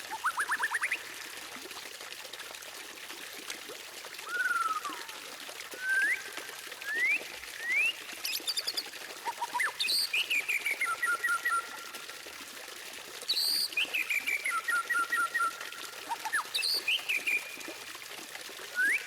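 White-rumped shama (murai batu) singing in separate phrases: quick rising whistles and fast runs of repeated trilled notes, over a steady background hiss.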